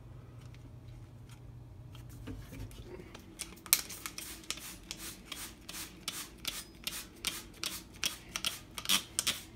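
Trigger spray bottle of Fantastic Scrubbing Bubbles Max grease cleaner being squeezed again and again, a short hissing spray with each pull, about three a second, starting about three seconds in.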